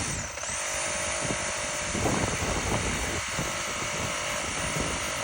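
Handheld electric power saw running steadily as it cuts. Its motor dips briefly and spins back up about a third of a second in, with a few rough knocks from the cut around the middle.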